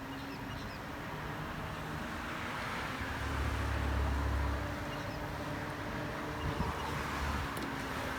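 Low engine rumble of a motor vehicle, swelling about three seconds in and fading again near the end, over steady outdoor background noise.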